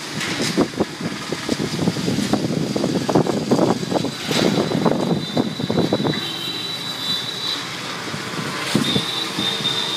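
Strong dust-storm wind gusting against the phone's microphone, a loud uneven rush that eases after about six seconds. A thin high steady whistle sounds in the second half.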